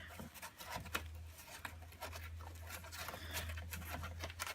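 Scattered light clicks and rustling as a homemade vending machine's mechanism is handled, over a steady low hum.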